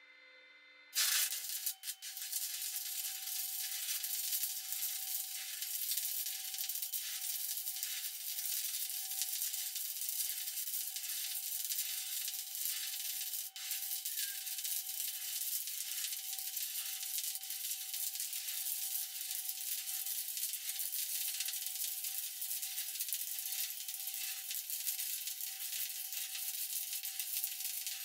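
Stick (SMAW) welding arc struck about a second in, then a steady crackling sizzle as a vertical bead is run, with a brief break in the arc about halfway.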